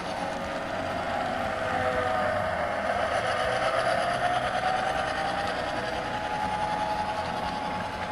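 HO-scale model diesel locomotive running on the layout, with a steady hum and a whining tone that rises and falls in pitch partway through, then holds steady.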